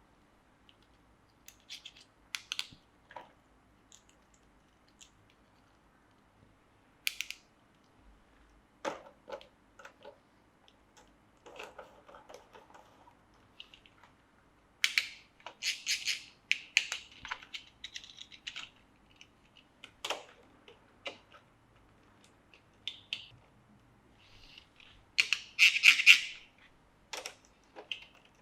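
Model train packaging being handled and opened: irregular clicks, taps and crinkling, with a loud cluster of crinkles and clicks near the end.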